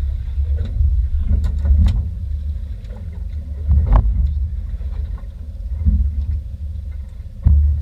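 Uneven low rumble aboard a charter fishing boat at sea, with a few sharp knocks, the loudest about four seconds in.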